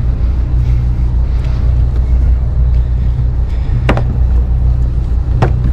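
Boat engine idling steadily with a low hum, and two sharp knocks about four and five and a half seconds in.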